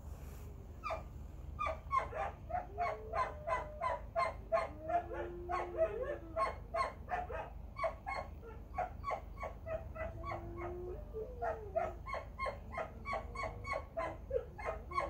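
A dog left alone by its owner barking over and over in short, high yaps, about three a second, with a couple of drawn-out whines among them.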